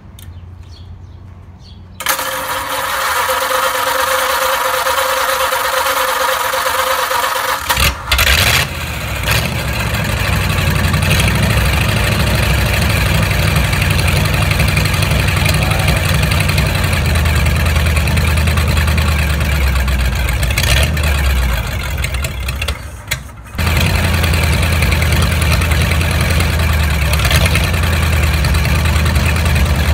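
A 1952 Ford flathead V8 being started: the starter cranks it with a steady whine for about six seconds, then it catches about eight seconds in and runs steadily, dipping briefly about three quarters of the way through before picking back up.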